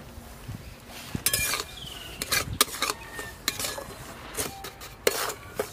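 Steel spatula scraping and clinking against a steel kadai while stirring semolina just added to hot ghee; a string of separate scrapes and clinks.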